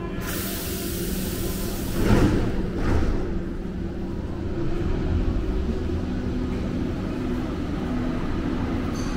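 Berlin U-Bahn train at the platform: a burst of hiss, then two heavy thuds about two and three seconds in as the doors shut, followed by a low rumble building as the train pulls out of the station.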